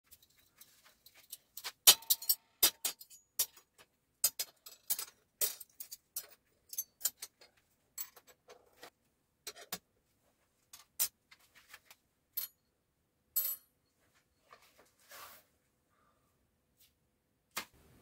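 Stainless steel spoons clinking and clattering on a steel welding table as they are set down one after another. The clinks come irregularly, and one ringing clink about two seconds in is the loudest.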